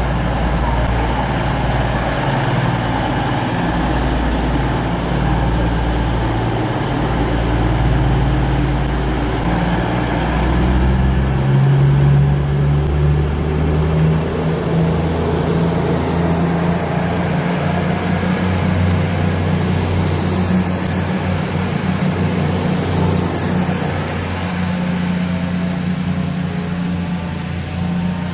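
East Midlands Railway Class 222 Meridian diesel multiple unit moving through the station, its underfloor diesel engines running under power with a deep drone that steps up in pitch about halfway through. A faint high whine rises in the second half.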